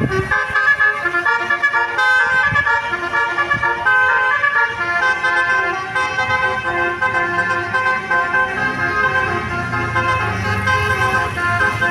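Basuri telolet bus horn, a multi-trumpet musical air horn, playing a quick melody: several tones sound together and change pitch every fraction of a second. A low rumble comes in near the end.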